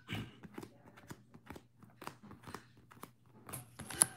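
Trading cards in plastic sleeves being handled, sorted and set down on a table: a string of soft, irregular plastic clicks and rustles, with a sharper click near the end.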